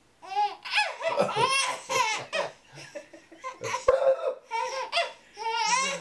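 A baby laughing in repeated bursts of giggles and high squeals, set off by a man's pretend sneezing. Near the end there is a drawn-out lower voice.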